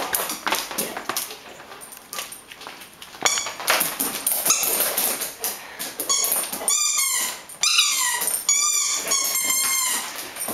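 Great Swiss Mountain Dog playing with a ball on a tile floor: short runs of high, falling squeaks about seven and nine seconds in, with sharp knocks of the ball and paws on the tile around three to four seconds in.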